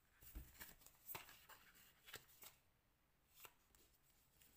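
A few faint, short taps and rustles of oracle cards being handled: a card is drawn from the deck and laid down on the spread.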